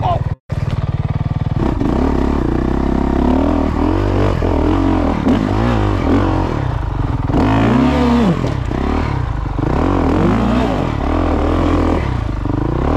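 Dirt bike engine revving up and down as it is ridden up a rocky trail, its pitch rising and falling again and again with the throttle. The sound drops out briefly about half a second in.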